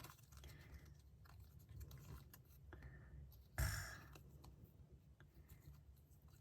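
Faint handling of small photo cards: scattered light clicks and one short papery rustle a little past halfway through.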